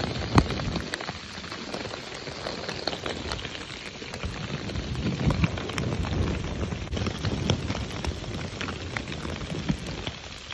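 Pea-sized hail and rain pelting down: a dense, steady patter dotted with many sharp ticks of hailstones striking.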